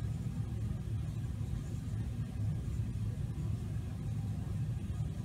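Steady low background rumble with no clear strokes or events in it.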